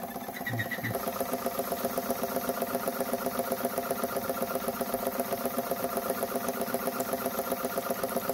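Jensen 50 toy steam engine running steadily with a fast, even beat, louder from about a second in, while its feed water pump draws the last of the water from the reservoir.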